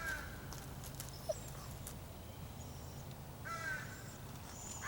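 A crow-like bird cawing: one short call at the start, then two or three short calls about three and a half seconds in, over a faint steady low hum.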